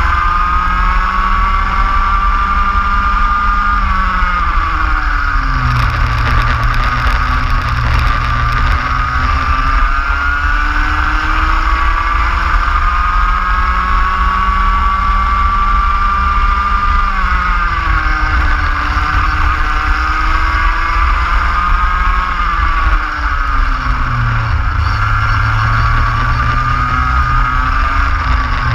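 Kart engine at racing speed, recorded onboard: its pitch climbs steadily along each straight and drops quickly under braking for the corners, three times, over a constant rumble of wind and vibration.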